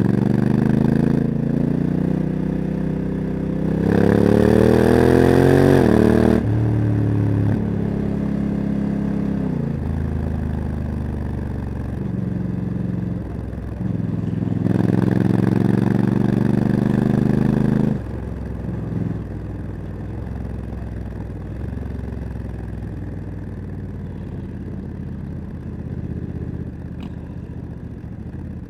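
Honda CRF1100 Africa Twin's parallel-twin engine with a Leo Vince exhaust, under way: it pulls hard in rising surges, each ending in a sudden drop in pitch as the DCT gearbox shifts up. About two-thirds of the way through the throttle closes sharply and the engine runs on quieter and lower.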